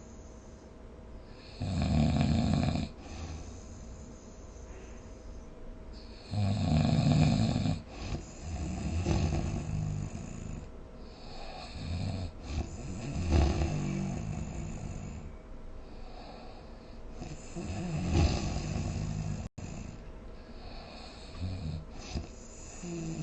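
A sleeping person snoring. Loud snores last a second or so each and come a few seconds apart, with quieter, irregular snores and breaths in between.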